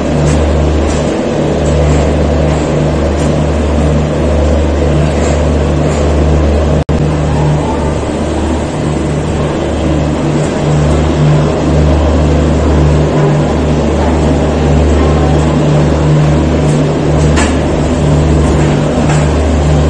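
Steady low rumbling drone of the diesel generator in an Indian express train's power car, heard from inside a coach of the moving train. There is a momentary dropout about seven seconds in.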